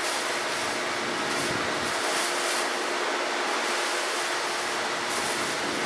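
Steady rushing noise with a constant low hum, from a machine running continuously.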